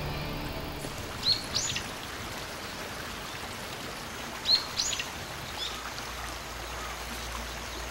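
Steady rushing of a river flowing over a weir and through rocky shallows. A few short, high bird chirps come about a second in and again around four and a half to five and a half seconds in.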